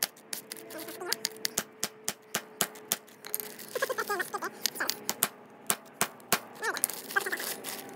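A hammer repeatedly striking chunks of bismuth inside a plastic bag to break them up: a fast, irregular run of sharp knocks.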